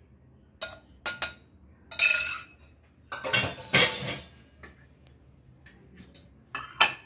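Stainless steel kitchen containers and vessels clinking and clattering as they are handled and set down: scattered separate knocks, with two longer clattering stretches about two and three and a half seconds in.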